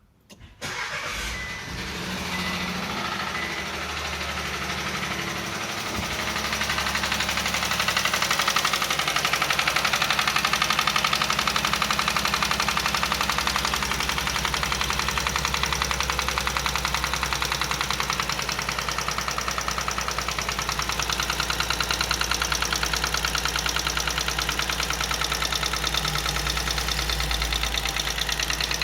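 Chevrolet Onix Plus three-cylinder engine cranking and catching about half a second in, then idling steadily with a fast, even knocking. This knocking is the strange noise the owner says comes on the first cold start of the morning when the brake is pressed.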